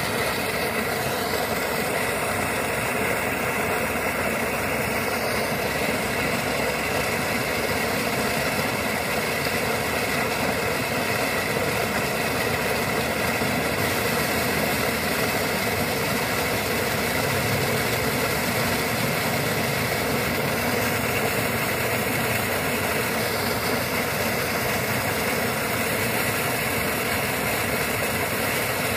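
Sand-and-water slurry gushing steadily from a sand pump's discharge pipe and splashing into the flooded, sand-filled plot: a constant rushing noise.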